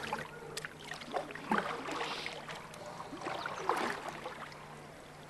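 Small boat on floodwater: light, irregular splashing and lapping of water against the hull, over a faint low steady hum.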